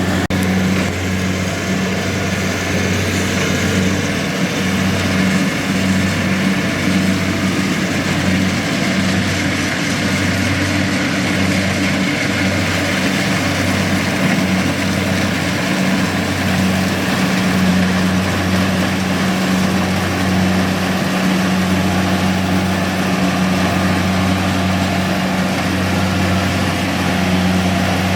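Kubota DC-70G PRO rice combine harvester's diesel engine running steadily, a continuous low hum over the noise of the machinery.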